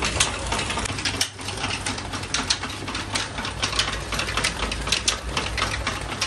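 Belt-driven flour mill (atta chakki) running: an electric motor turning flat belts over large pulleys, a steady low hum under fast, irregular mechanical clattering.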